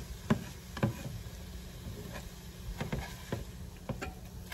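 Plastic slotted spatula stirring scrambled eggs in a nonstick skillet, making a few short, irregular scrapes and taps against the pan.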